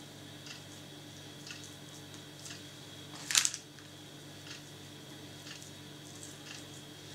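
Raw meat strips handled on a layer of minced meat: quiet, with one brief soft rustle about three and a half seconds in. Under it run a steady low hum and a faint tick about once a second.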